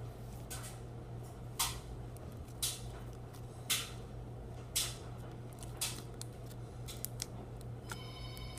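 Slime being worked by hand, with a sharp click or pop about once a second over a steady low hum. Near the end a phone starts ringing with a repeating electronic tone.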